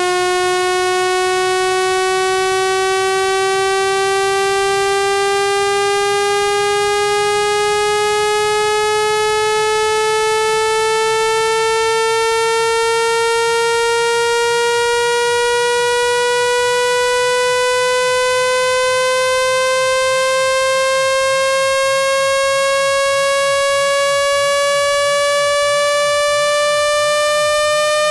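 Synthesized buzzy tone with many overtones, gliding slowly and steadily upward in pitch by less than an octave: a speaker-cleaning sweep meant to vibrate a phone speaker's membrane to shake out water and dust.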